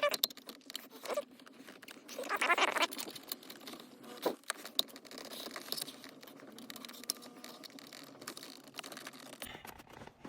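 Hands working a car radio head unit into the dash: rustling and scraping of plastic and wiring, with a short squeak about two seconds in and a sharp click a little after four seconds.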